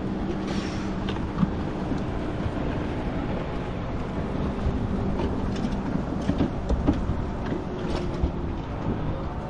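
Steady low rumble of a small boat, with a faint hum for about the first second and scattered clicks and knocks.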